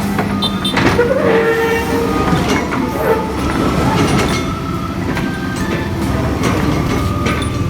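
Hydraulic excavator running with its crusher jaws squeezing steel demolition scrap: a steady engine drone with squeals and clanks of metal.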